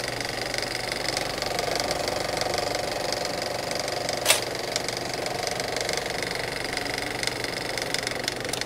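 A small machine running with a steady, rapid mechanical clatter, and a brief sharp swish about four seconds in.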